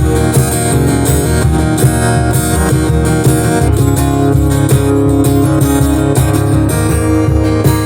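Instrumental passage of a country song, led by a strummed acoustic guitar over a steady bass and beat.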